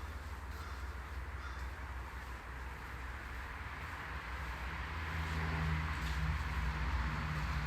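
Steady low hum under a background hiss that grows louder in the second half.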